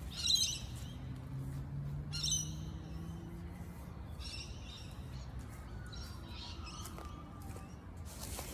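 Birds chirping: four short bursts of high calls a couple of seconds apart, over a low hum during the first few seconds.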